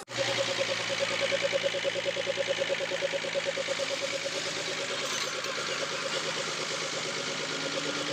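Rebuilt Bedford six-cylinder diesel engine running at a steady idle with an even pulsing beat, starting abruptly right at the beginning.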